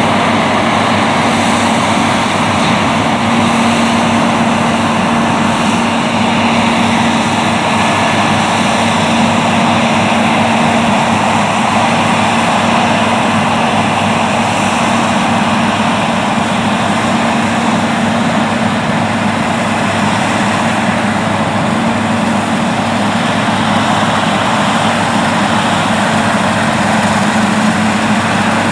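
New Holland CR8090 twin-rotor combines running steadily while harvesting wheat: a constant machine drone with a steady low hum.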